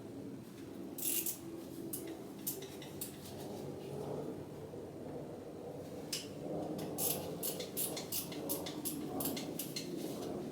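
Metal hand tools clicking and clinking on the engine while bolts are worked loose: a few sharp clicks early, then a denser irregular run of clicks in the second half, over faint handling noise.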